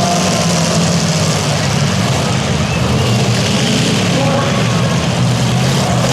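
Several demolition derby cars' engines running and revving together, loud and steady, with indistinct voices mixed in.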